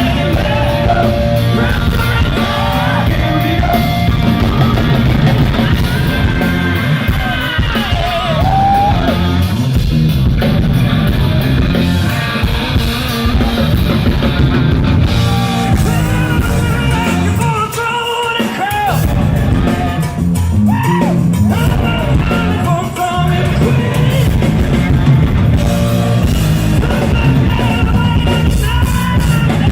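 Rock band playing live, with a singer's voice and guitar over bass and drums, loud and continuous.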